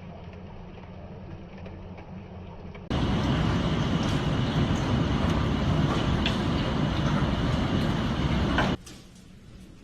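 Storm noise from two spliced clips: a steady hiss for about three seconds, then a sudden cut to much louder, dense rushing noise with a heavy low rumble and scattered sharp ticks, which cuts off abruptly near the end.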